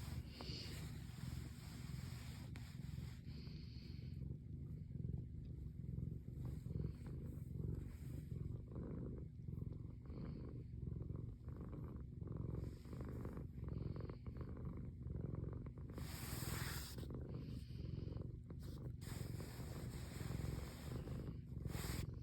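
Domestic cat purring steadily in a low, pulsing rumble. A short rustling noise breaks in about three-quarters of the way through and again near the end.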